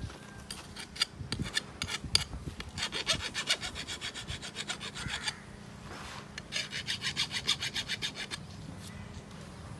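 Rapid rasping scrape of an iron crowbar being worked and twisted down into the soil to fix it upright. It comes in two longer bouts of quick, even strokes.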